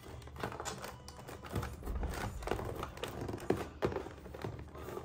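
Hands handling small plastic toys and cardboard packaging: an irregular run of light clicks and taps.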